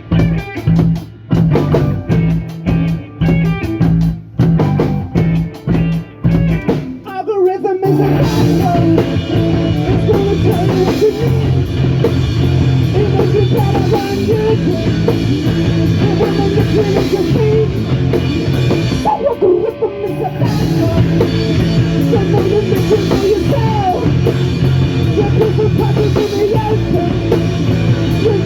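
Live punk rock band with distorted guitar, bass and drum kit. The first seven seconds are stop-start hits with short gaps between them; the full band then plays continuously from about eight seconds in, with a brief break just before twenty seconds.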